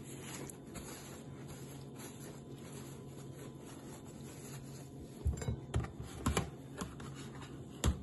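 Paper napkin rubbing and scraping salt off salt-cured duck legs in a plastic container, over a low steady hum. A few sharp knocks of handling come between about five and six and a half seconds in, and one more near the end.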